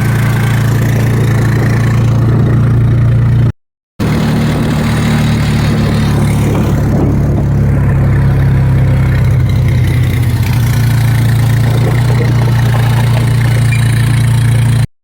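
ATV engine running steadily at low speed while hauling a log, broken by a brief dropout about four seconds in.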